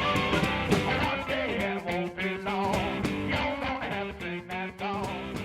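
Background music led by guitar, with plucked notes over a steady beat, fading slightly toward the end.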